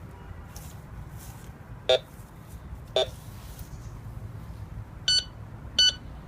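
Target-ID beeps from a Prestige Advanced metal detector as it is swept over the ground. Two short low-pitched beeps about two and three seconds in are followed by two short higher-pitched beeps near the end, the tone changing as its reading of the target changes from iron to silver and copper.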